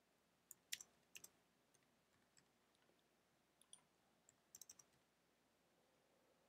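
Faint computer keyboard clicks as an answer is typed, in two short bursts of keystrokes: one about a second in and another around four and a half seconds in.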